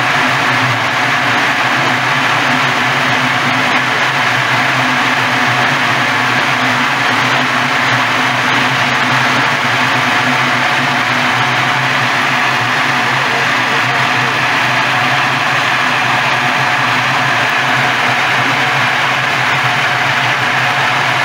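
Walnut hulling machine running steadily, a constant motor hum under a dense even rushing noise of the husking drum at work.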